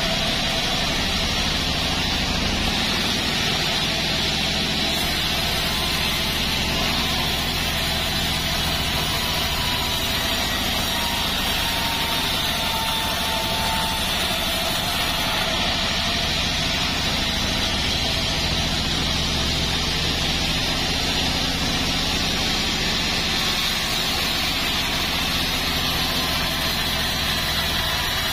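Band sawmill running steadily, its blade cutting lengthwise through a joar log: an even machine drone with a faint high whine from the blade.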